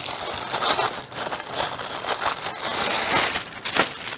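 Protective packaging being peeled off a trimmer's metal shaft, crinkling and crumpling in irregular rustles.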